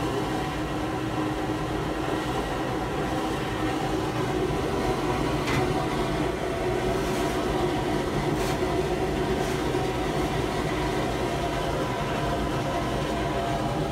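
Glass-bead blast cabinet running: a steady mechanical drone with a low hum, with a few faint clicks in the middle.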